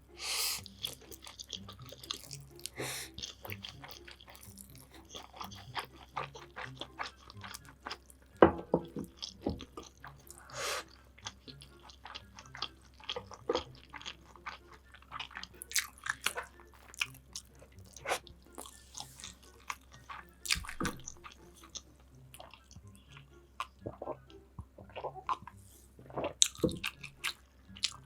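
Close-miked chewing and biting of food, with crunchy bites and irregular wet clicks.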